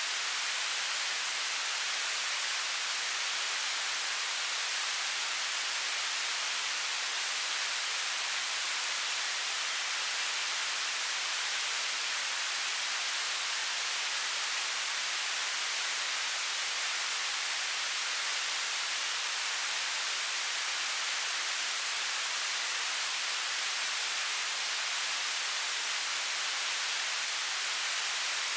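Television static: a steady, even hiss of white noise, bright and high-pitched with little low end, unchanging throughout.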